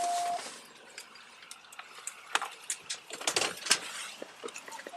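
A short electronic beep, then scattered clicks, small metallic rattles and rustling from officers' gear and clothing as they move.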